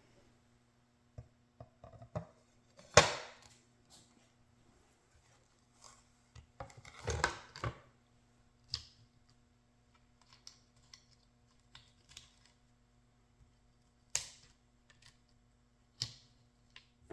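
Scattered light clicks and knocks of small hard objects being handled, with one sharper knock about three seconds in, a short cluster of scraping and knocking around seven seconds, and two crisp clicks near the end, over a faint steady hum.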